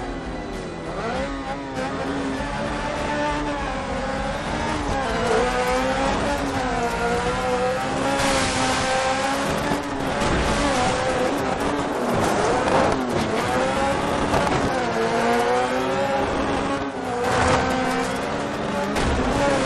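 Off-road cage buggy's engine revving as it is driven hard, its pitch rising and falling over and over, with brief drops now and then, over a steady rushing noise.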